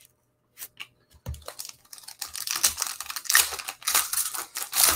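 A foil pack of 2020 Panini Contenders Draft Picks football cards being torn open and crinkled by hand, with dense crackling rustle through the second half. Before it, a few light clicks and a soft thump about a second in.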